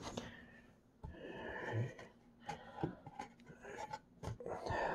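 Hands handling toy packaging, a clear plastic blister tray in a cardboard box: rustling and rubbing about a second in, then a few light taps and knocks.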